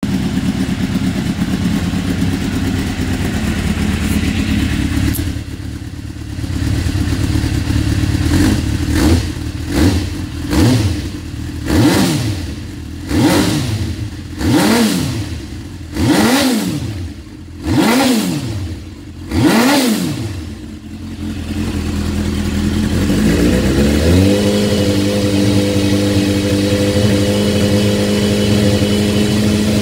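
Suzuki GSX-R750 SRAD's inline-four engine breathing through a K-Factory full exhaust system, free-revving in neutral. It idles, then is blipped about ten times, the revs rising and falling quickly each time, and in the last several seconds it is held at a steady higher speed.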